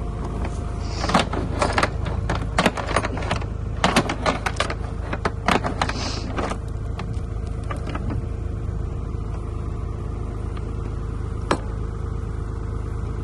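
Old Ford backhoe's engine running steadily, with a quick series of sharp knocks from about one to six and a half seconds in and one more knock near the end.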